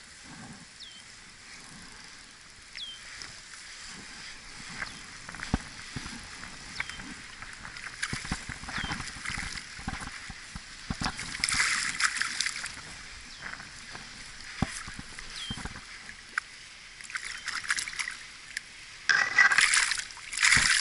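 A hooked bass thrashing and splashing at the water's surface as it is reeled in, loudest twice: about twelve seconds in, and again near the end as it is drawn to the bank. Small knocks and clicks from handling the rod come between the splashes.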